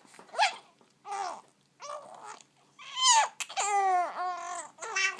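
Baby babbling and cooing in a string of about six short high-pitched vocal sounds, with one longer drawn-out sound that dips in pitch a little past the middle.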